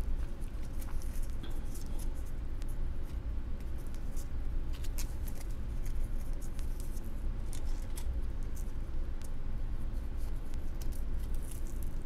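Faint scattered rustles and small clicks of hands handling something close to a lapel microphone, over a steady low hum.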